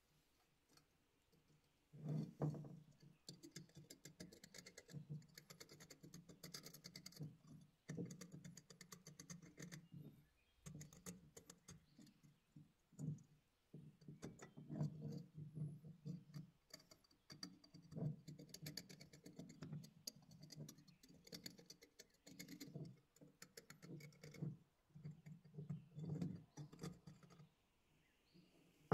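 Small flat-blade screwdriver scraping and picking flaky rust off a corroded steel bayonet scabbard and hilt. It comes in bursts of rapid scratchy clicking, with short pauses between strokes.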